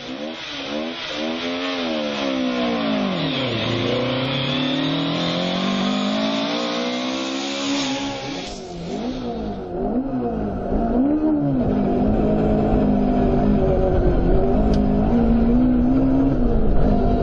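Ford Escort Mk2 rally car's 1600 Cosworth BDA four-cylinder twin-cam engine revving, its pitch rising and falling repeatedly through the gears, heard from inside the car. About halfway through the sound changes abruptly to a deeper rumble, with the revs still rising and falling.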